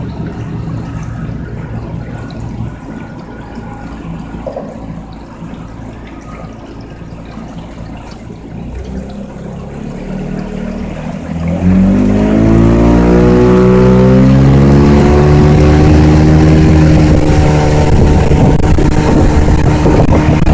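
Outboard motor of a small fishing boat running at low speed, then opened up about halfway through: it gets suddenly louder, its pitch sweeps up and settles into a steady high-speed drone as the boat accelerates.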